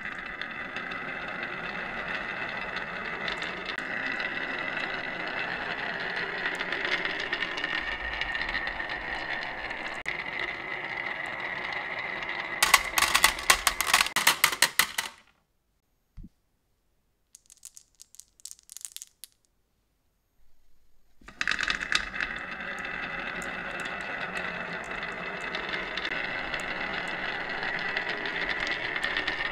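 Several marbles rolling down the winding grooves of a wooden marble track, a steady rolling rumble. About 12 seconds in, a loud clatter as marbles drop into a metal tin truck. After a few seconds of near silence with a few faint clicks, a new run of marbles starts rolling down the wooden track.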